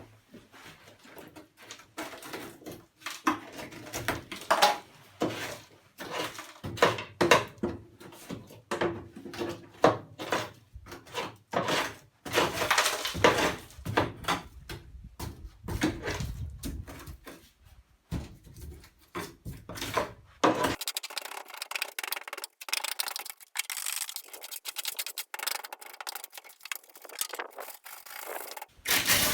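Dry-rotted wood being scraped and chipped out of a hole in a wooden door by hand, in quick irregular scraping and knocking strokes.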